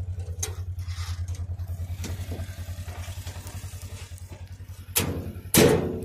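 Side-by-side UTV engine idling with a steady, fast low pulse. Two loud thumps come near the end, the second the loudest.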